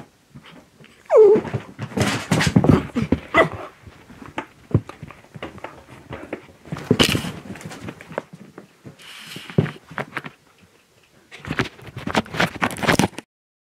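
Small dogs pouncing after a laser dot on a shaggy rug: a busy run of scrabbling paws and thumps close by, with a short falling whine from one dog about a second in.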